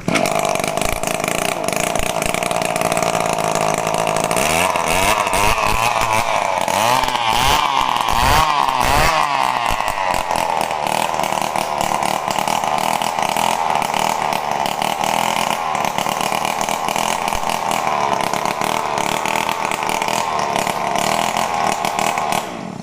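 RME260 brush cutter's two-stroke engine being test-run after repair, running fast. It is revved up and down several times between about four and ten seconds in, then held at a steady high speed.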